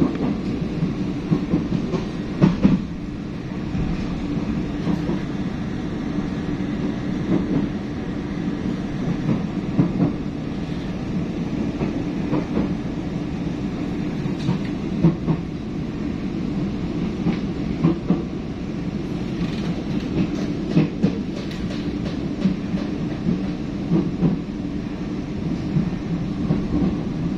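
Running noise of the Kualanamu airport express train heard from inside a carriage while it travels at speed: a steady low rumble with irregular clacks and knocks from the wheels on the track.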